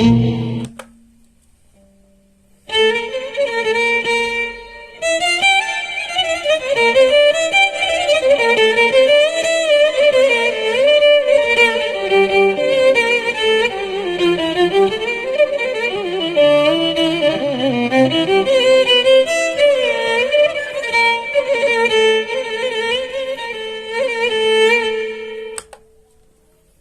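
Violin played through a Zoom G1Xon multi-effects processor: a bowed melody with sliding, wavering pitch. It stops about a second in, comes back after a couple of seconds with a short break, then plays on until it stops shortly before the end.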